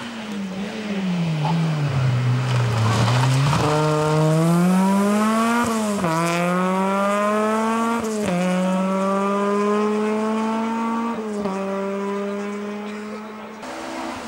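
Peugeot 206 rally car engine coming off the throttle with falling revs, then accelerating hard. It changes up three times, the revs dropping at each shift and climbing again.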